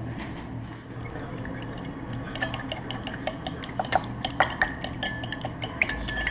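Metal fork whisking a thin liquid mix in a bowl, clinking rapidly and unevenly against the bowl from about two seconds in. A steady low hum runs underneath.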